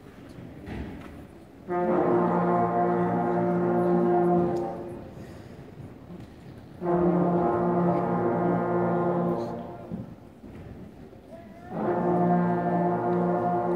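Beginner middle-school band playing the same long held note three times, each lasting about two and a half seconds, with pauses of about two seconds between them.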